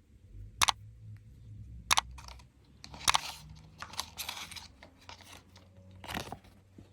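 Candy packaging being handled and opened: a few sharp plastic snaps about a second apart, with a stretch of wrapper crinkling around three to four seconds in.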